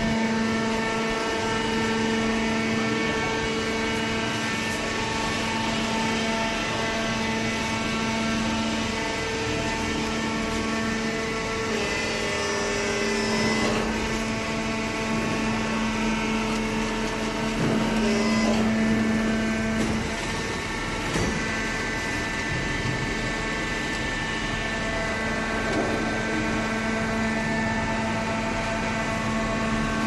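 Fully automatic hydraulic waste-paper baler running: a steady humming drone from its electric motor and hydraulic pump. The tone shifts briefly about halfway through, then settles again.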